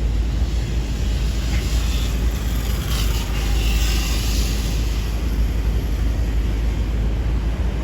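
Manhattan street traffic with a heavy low rumble throughout. A brighter hiss swells and fades about three to five seconds in, as from a passing vehicle.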